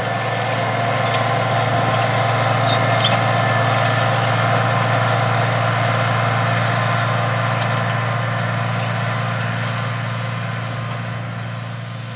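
International Harvester 966 tractor's diesel engine running steadily under load as it pulls a planter across the field. It grows louder over the first few seconds and eases off toward the end.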